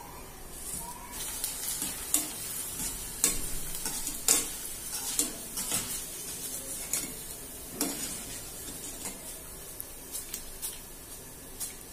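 Maize flakes (corn poha) deep-frying in hot oil in a kadhai, a steady sizzling hiss. A wire-mesh strainer stirs them and knocks against the pan in a dozen or so sharp taps and scrapes.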